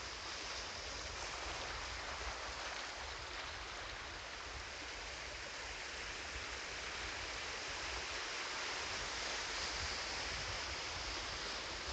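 Steady rushing noise, like running water, with no speech or music.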